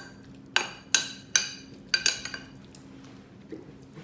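A metal spoon clinking against a glass food container as it mashes drained canned tuna: about five sharp, ringing clinks in the first two and a half seconds, then only one faint tap.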